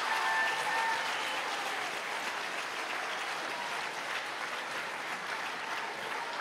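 Auditorium audience applauding, gradually dying down, with the last held notes of a song fading out in the first second.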